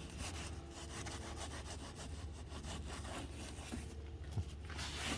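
Repeated hand scrubbing strokes on a car's interior surfaces, cleaning off grime, getting louder near the end.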